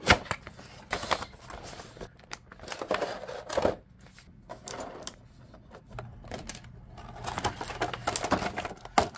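Stiff clear plastic packaging tray and cardboard box being opened and handled: irregular crinkling and crackling of plastic with scattered sharp clicks and knocks, the loudest knock right at the start.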